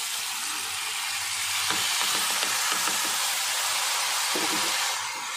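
Loud sizzling as wet, freshly ground chili paste (bird's-eye chilies and tomato) hits hot oil with fried shallots and garlic in a wok. The sizzle eases slightly near the end.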